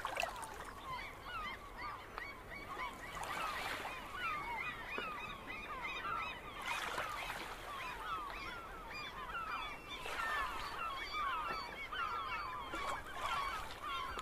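A flock of birds calling over one another: a dense, unbroken chorus of short calls that bend up and down in pitch.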